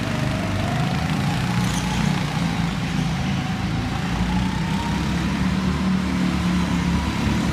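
Go-kart motor running on an indoor track: a steady low drone with a fainter whine that slowly rises in pitch as the kart gathers speed.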